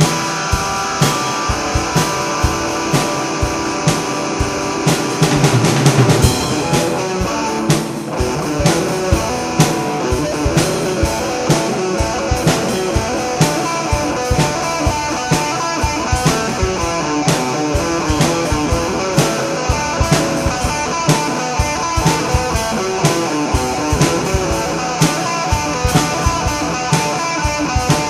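Instrumental rock music: electric guitar playing riffs over a drum kit's steady beat.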